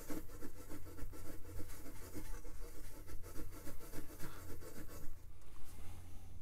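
A Brillo steel-wool pad scrubbing back and forth on the flame-out sensor inside a propane torpedo heater: quick, scratchy rubbing strokes that stop about five seconds in, over a low steady hum. The scrubbing removes the oxidation layer that keeps the sensor from detecting enough heat, which makes the heater flame out.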